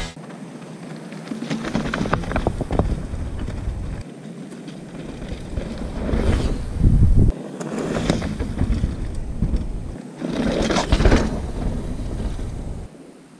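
Mountain bike riding on a dirt trail: tyres rolling and skidding over dirt and loose stones, with wind buffeting the camera microphone. The sound changes abruptly several times and swells as the bike passes close.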